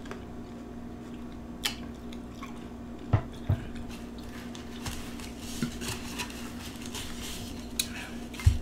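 Tableware being handled: a few light clicks and taps on a plate, soft paper-towel rustling, then a thump near the end as a small glass bowl is set down. A steady low hum runs underneath.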